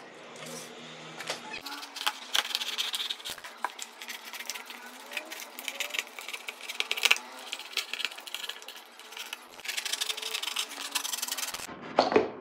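Utility knife blade slicing through corrugated cardboard: a rapid crackle of many small clicks in spells, with short pauses as the board is shifted. Near the end comes a louder knock of the cardboard being handled against the table.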